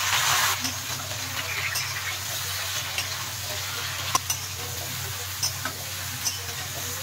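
Food frying and sizzling in hot oil in a pan. A louder burst of sizzle comes at the start, and a few sharp clicks follow as a spatula strikes the pan.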